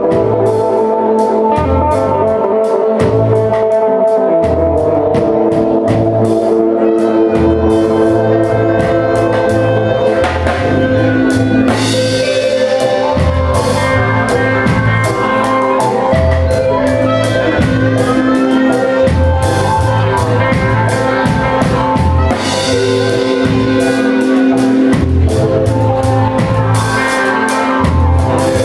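Live band playing instrumental dub music: a drum kit keeps a steady beat under pulsing bass notes and long held tones.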